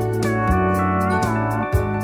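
Background music: slide guitar over a steady beat.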